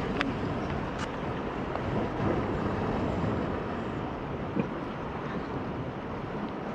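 Ocean surf washing against a rocky shore, with wind buffeting the microphone; a couple of faint clicks in the first second.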